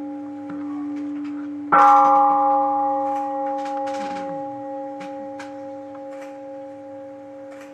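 A meditation bell of the standing-bowl kind rings on from an earlier strike. It is struck again about two seconds in, the loudest moment, and left to ring with a slowly fading, many-toned hum. A few faint knocks and rustles sound around it.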